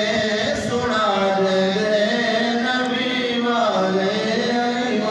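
A man's voice chanting a melodic religious recitation into a microphone, in long held notes that bend slowly in pitch.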